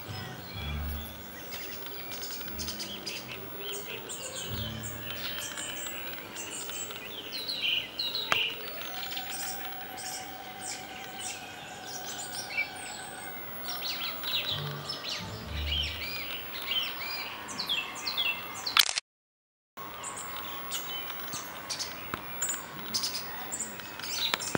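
Dusk chorus of many songbirds chirping and trilling, with operatic singing faint in the background that holds one long note for a few seconds near the middle. The sound cuts out completely for a moment about two-thirds of the way through.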